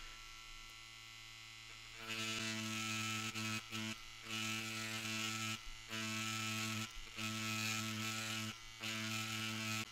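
Mast pen-style rotary tattoo machine running with a steady electric buzz. From about two seconds in it gets louder and rougher in stretches of about a second, with short breaks between them, as the thin-liner needle is worked into cased leather stroke by stroke to write script.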